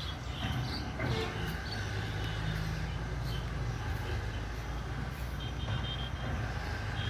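Street ambience dominated by a vehicle engine running steadily, with faint high chirps over it.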